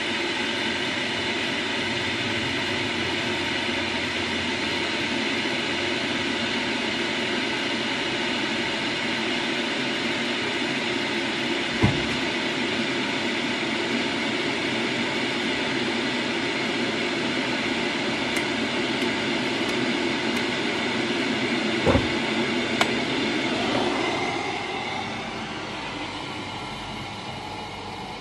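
Electric kettle heating to the boil: a steady rushing rumble with a couple of sharp knocks, which dies away near the end just after a click as the kettle switches off.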